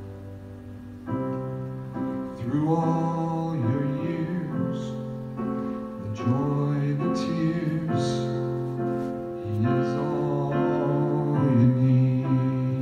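Slow worship song on a keyboard playing held piano chords; a man's voice starts singing over it about two seconds in.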